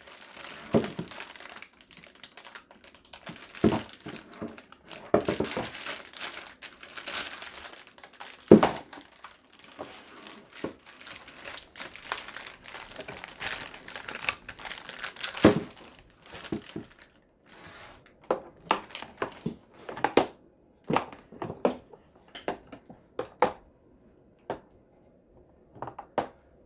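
Clear plastic packaging bag crinkling and rustling as a toy sink's faucet part is unwrapped, with scattered sharp clicks and knocks in the second half.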